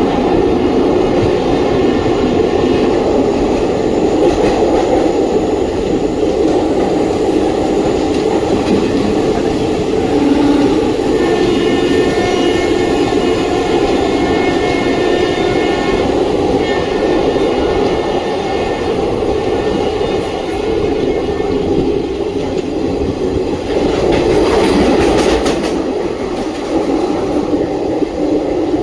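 ICF passenger coach running along the track, heard on board: a steady rumble with wheels clattering over the rail joints. A faint high whine runs through the middle, and about three-quarters of the way through there is a brief louder rush.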